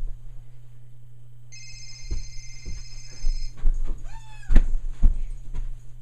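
Sound effects played from a smartphone's speaker: a steady electronic beeping tone for about two seconds, then a short gliding whistle-like sound, followed by two loud thumps.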